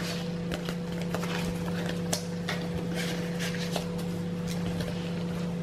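Paper and card rustling, with light scattered taps and clicks, as a handmade journal's pages and tags are handled and pressed flat, over a steady low hum.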